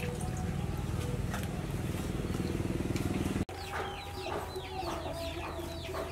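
Chickens clucking and cheeping: many short, falling high calls and a few lower clucks. These start after an abrupt cut about halfway through, which ends a steady low rumble.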